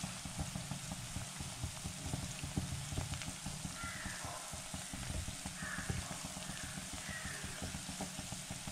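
Masala-coated soya chunks deep-frying in hot oil in a pan: steady sizzling with frequent small crackles and pops.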